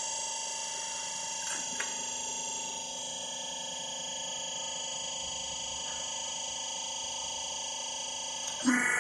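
Hydraulic hose crimping machine running, its pump motor giving a steady hum with a high whine. A couple of light clicks come about a second and a half in, and near the end a louder, noisier sound cuts in as the machine works.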